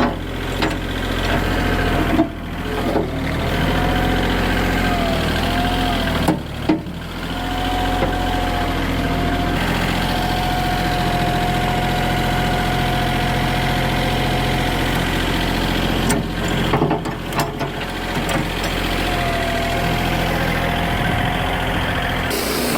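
Engine of a Wood-Mizer LX55 portable band sawmill running steadily, with a thin wavering whine over the engine note.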